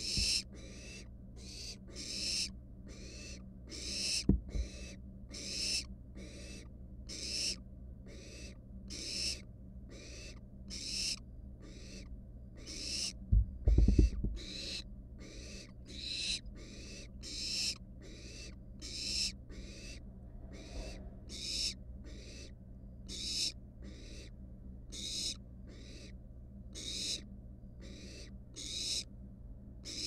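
Barn owl nestlings giving their rasping, hissing 'snoring' calls over and over, about two a second, the calls young barn owls use to beg for food. A cluster of thumps about halfway through, over a steady low electrical hum.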